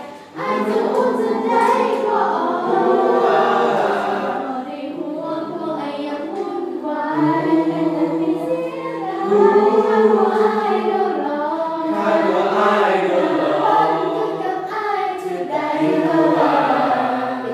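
School choir of students singing together in several parts, with sustained, overlapping sung notes; the singing comes in about half a second in.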